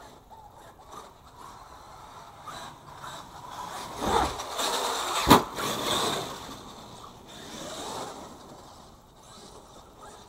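RC monster truck driving over a snowy yard: its running and tyre noise grows louder about four seconds in, with one sharp knock near the middle, then fades.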